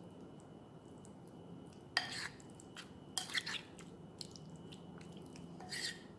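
Chicken pieces being mixed into a thick, wet spice marinade in a bowl: scattered light knocks and wet squelches, the loudest about two seconds in, a quick cluster a second later, and another just before the end.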